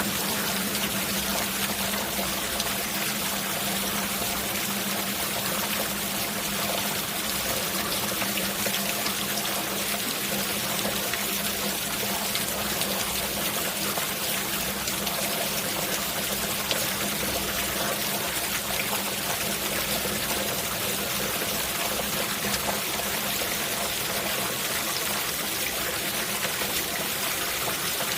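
Steady rain falling, with water trickling and pouring steadily throughout.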